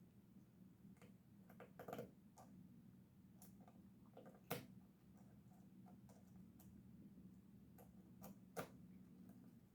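Faint, scattered small clicks and taps of folding-knife parts and tools being handled during assembly, three of them sharper than the rest, over a low steady hum.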